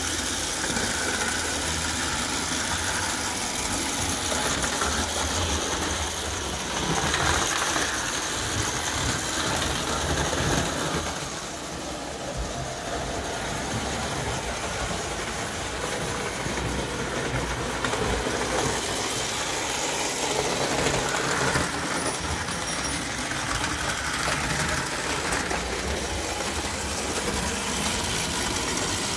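Tinplate model steam locomotive ME70/12920 running on tinplate track: a steady mechanical whir of its motor and gearing with the rattle of wheels on the rails. A few sharp clicks come about two-thirds of the way through.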